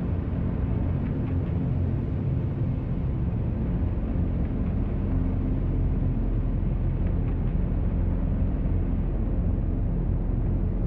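A steady, low rumbling drone, an ominous sound-design bed in the film's soundtrack.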